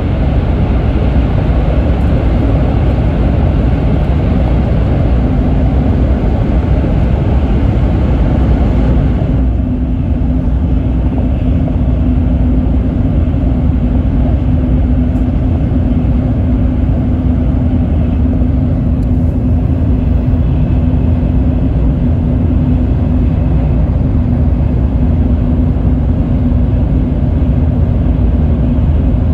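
Sanyo Shinkansen bullet train running at speed, heard from inside the passenger car: a steady rumble and rush of running noise. About nine seconds in, the hiss in the upper range drops away suddenly and a steady low hum stands out.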